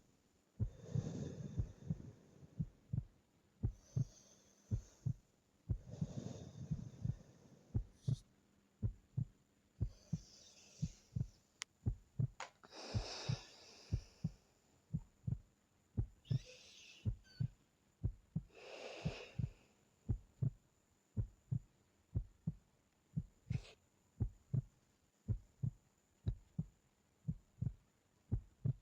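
A steady heartbeat of low paired thumps, with a sleeping person's soft, slow breathing, in and out every few seconds. The breaths stop about two-thirds of the way through, while the heartbeat goes on.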